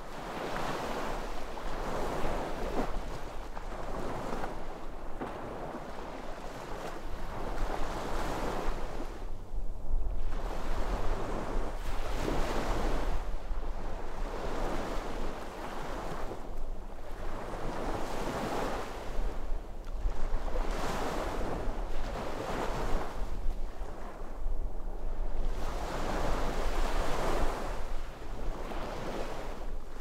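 Sea waves breaking and washing up on the shore, one swell of rushing surf after another every few seconds.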